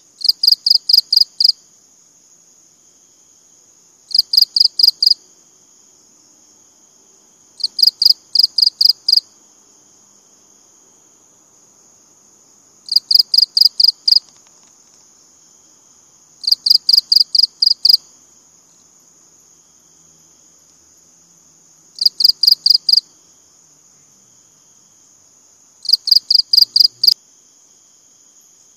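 Cricket chirping close up: seven loud bursts of about six rapid pulses each, one every three to five seconds, over a steady high-pitched drone.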